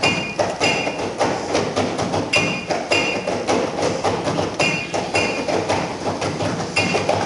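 Fast, rhythmic metallic hammering and clinking played as a percussion soundtrack, with short ringing pings coming back every second or two.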